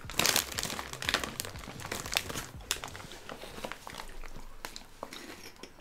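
Plastic snack bag crinkling in irregular crackles, with crunching of chocolate-covered corn snacks being eaten.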